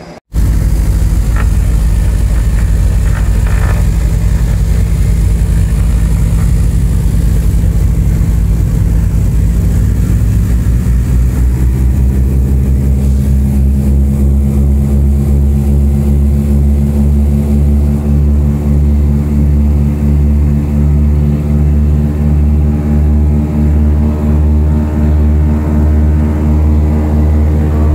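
Twin radial engines of a 1952 Beech 18, heard loud from inside the cockpit. They run steadily, then rise in pitch about ten seconds in as power comes up for the takeoff roll, and at full power the sound pulses about once a second.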